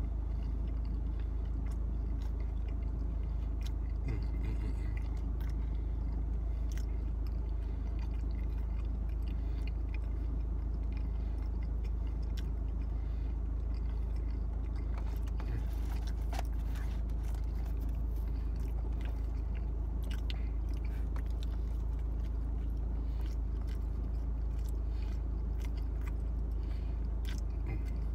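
Close-up chewing of pizza: soft biting, wet mouth clicks and smacks, over a steady low hum inside the car.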